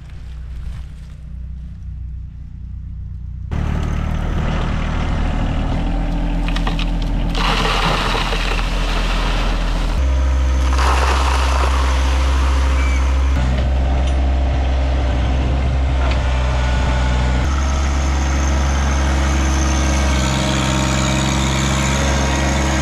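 John Deere 1023E sub-compact tractor's three-cylinder diesel engine running steadily, quieter at first and louder from a few seconds in, its pitch changing abruptly several times. In the middle there is a rushing of loose fill pouring from the loader bucket.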